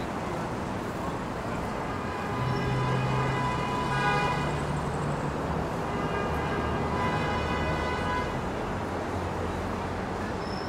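Vehicle horn sounding two long, steady blasts over city traffic noise: the first about two seconds in, the second right after it.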